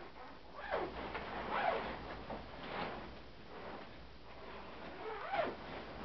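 Tent zippers being pulled shut, heard as several separate rasping runs.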